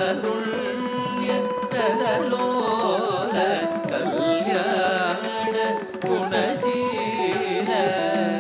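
Carnatic music for a Bharatanatyam dance-drama: an ornamented melody that glides and bends around its notes over a steady drone, with percussion strokes.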